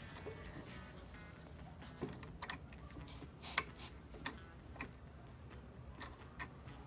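A hand tap in a T-handle tap wrench cutting 10-24 threads into a drilled hole in the metal step bushing of a shotgun stock's adjustable comb, giving about nine sharp, irregular clicks as it is turned, the loudest about halfway through.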